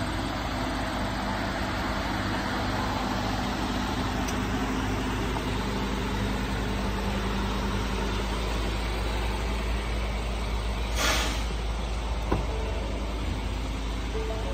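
Steady low hum of a vehicle engine idling under outdoor background noise. About eleven seconds in there is a short whoosh, then a single sharp click, as a truck door is opened.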